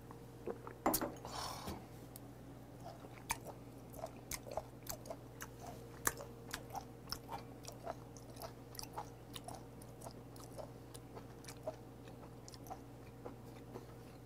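A man chewing a mouthful of raw beef shank close to the microphone: short wet mouth clicks and smacks, about two a second. A brief louder burst of noise comes about a second in.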